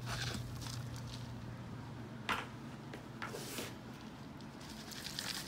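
Plastic plant pot scraping and scooping moist potting soil, with a few brief scrapes in the middle; near the end, loose soil pours from the pot onto the substrate in a dense crackle.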